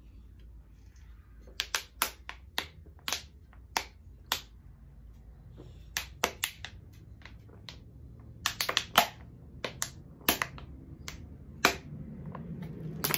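Someone gulping a drink down from a plastic water bottle, with a string of sharp, irregular clicks and pops from the swallows and the flexing bottle, starting about a second and a half in.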